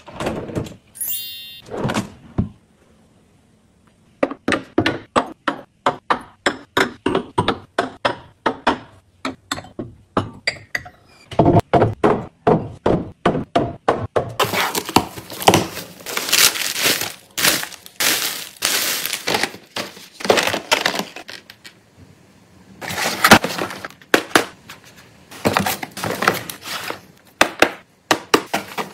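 Household items and containers being picked up and set down one after another during organizing, in rapid runs of small clicks, taps and thunks. From about halfway in, the handling turns into a denser stretch of rustling and clattering, then briefly drops off before more taps near the end.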